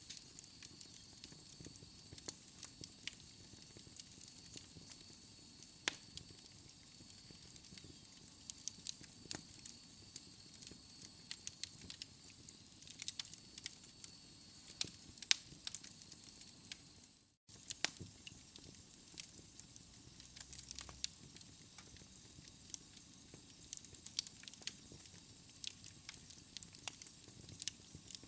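Fire crackling: frequent sharp pops and snaps over a steady soft hiss, with a faint high whistle in the first part. The sound cuts out for an instant about two-thirds of the way through, then the crackling carries on.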